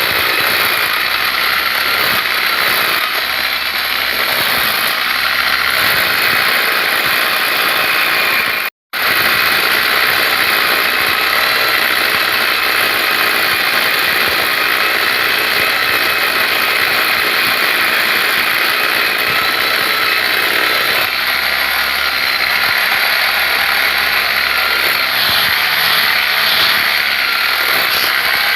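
A machine running steadily and loudly, with a brief total cut-out a little under nine seconds in.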